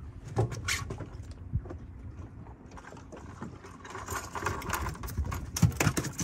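Irregular knocks and rustling as gear is handled in a cooler box on a small fibreglass boat, with a quick run of knocks near the end.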